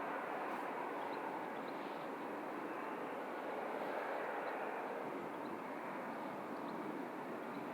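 Steady airport noise of jet aircraft engines running, an even rushing sound that holds level without rising or falling.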